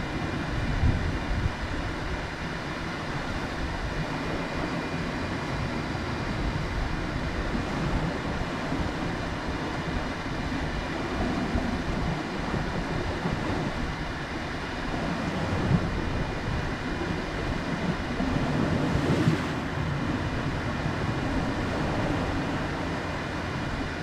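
Steady low rumble of wind and surf, with no distinct events.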